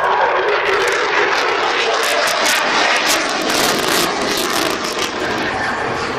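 Eurofighter Typhoon's twin EJ200 turbofans at full power in a display, a steady jet roar with a ragged crackle, thickest through the middle and easing slightly near the end.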